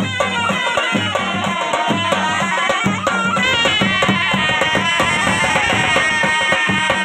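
Two surnai, wooden double-reed shawms, playing a wavering, ornamented folk melody of the Gilgit-Baltistan harip ensemble over a steady drum beat.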